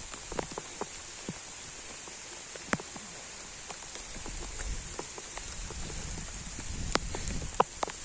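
Outdoor ambience on a wet rock path: scattered, irregular light taps and ticks over a steady hiss, with a low rumble building from about halfway in.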